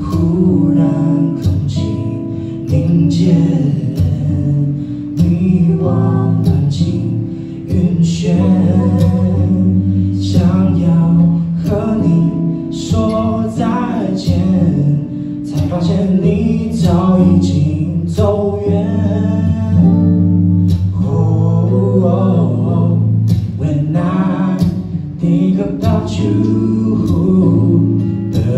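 Live music: a male singer singing with his own acoustic guitar accompaniment.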